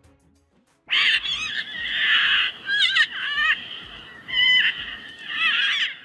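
Cockatoo screeching, starting about a second in: a run of harsh, loud squawks with wavering, rising and falling whistled notes.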